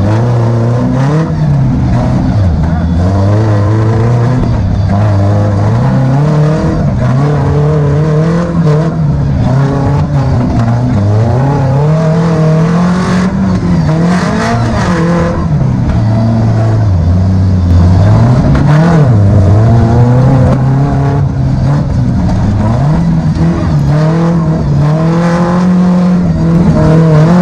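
Engine of a tubular-frame off-road 4x4, heard from on board, revving up and dropping back again and again as the throttle is worked. About halfway through, a short noisy hiss rises over the engine.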